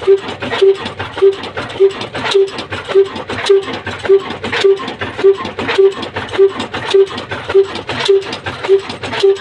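Old slow-running single-cylinder diesel engine of the Ruston type, with heavy flywheels, running steadily. It gives an even beat of just under two a second, with lots of sharp clicking and knocking between the beats.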